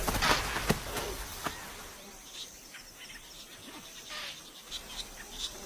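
Music fades out over the first second or so, leaving a natural ambience of insects buzzing with short high chirps scattered through it.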